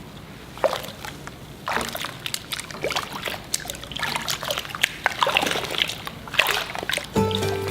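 Bath water splashing and sloshing irregularly as a Labrador puppy is washed, with sharp splashes every second or so. Music comes in just before the end.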